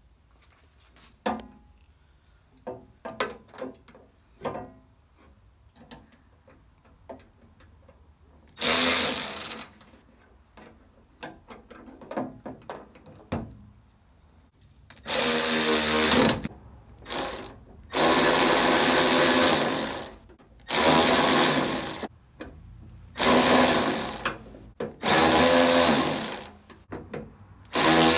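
Milwaukee M12 cordless power tool run in repeated bursts of one to two seconds, tightening the mounting bolts of a tool-cart caster; light clicks and handling knocks come first, then one burst, then about six more in quick succession in the second half.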